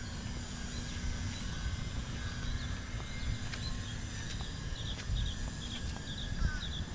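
Outdoor ambience: an uneven low rumble of wind on the microphone under a faint steady hum, with a bird chirping faintly in short pairs in the second half.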